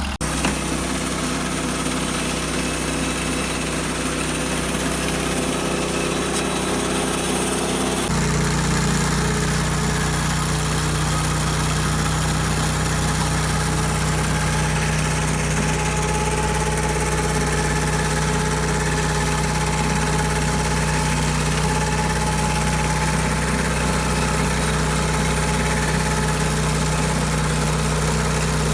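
Portable bandsaw mill's engine running steadily, stepping up to a higher, louder speed about eight seconds in.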